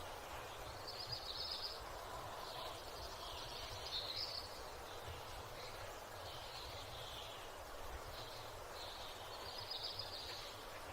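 Morning outdoor ambience: small birds chirping in short high phrases every second or two, over a steady low rumble of background noise.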